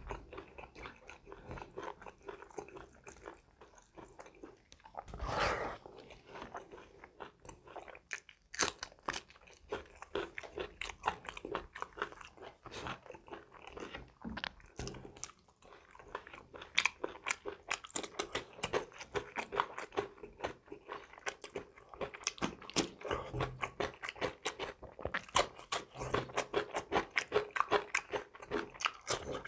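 Close-miked chewing of mouthfuls of rice and curry eaten by hand: a steady stream of short mouth clicks, smacks and bites, busier in the second half.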